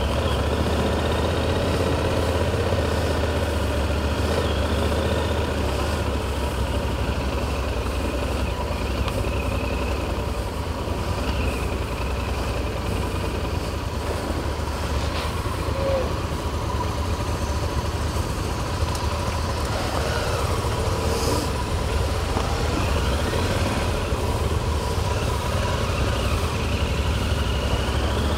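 Motorcycle engine running steadily at low riding speed, heard from a camera mounted on the bike, with wind and road noise; a steady low rumble with no break.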